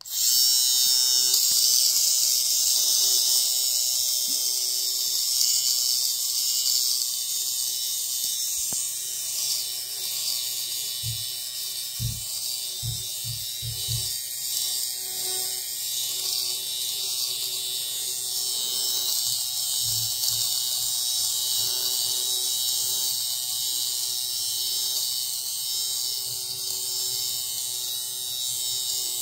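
Ardesto LSH-Y1 electric fabric shaver starts abruptly and runs steadily, a high whirring of its spinning blades as it is passed over knit fabric, shaving off pills. A few dull low knocks come partway through.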